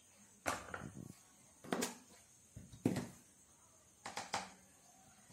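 A few short knocks and clinks of kitchen items being handled, in four small clusters, the loudest about three seconds in.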